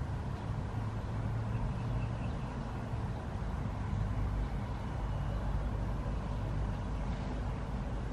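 Steady low rumble of background noise, with no distinct events, typical of distant traffic.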